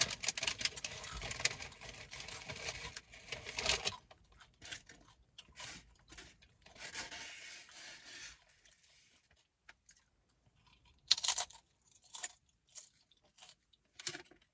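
Close-miked crunching of crunchy food being chewed, dense for the first four seconds. A shorter bout follows around seven seconds in, then a few sharp clicks near the end.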